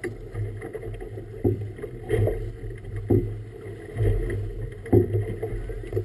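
Choppy water slapping against the hull of a small boat about once a second, over a steady low rumble.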